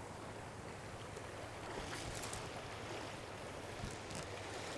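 Small trout stream flowing steadily over a riffle, a continuous rushing of water, with a few faint splashes about two seconds in.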